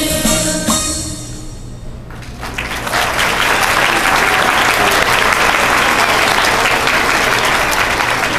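The last notes of a children's choir song fade out, then audience applause starts about two and a half seconds in and carries on steadily.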